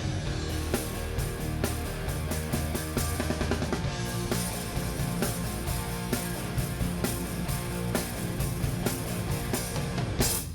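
Live rock band playing an instrumental passage with electric guitars, bass guitar and drum kit, with no singing. The sound drops out sharply for a moment at the very end.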